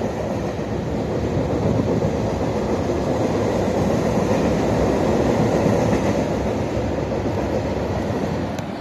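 Freight train cars, loaded coal cars and then tank cars, rolling past: a steady noise of steel wheels running on the rails.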